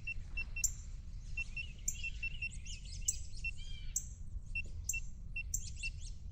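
Small birds calling from the mangroves: many short high chirps, some repeated on one pitch and some falling, over a steady low background rumble.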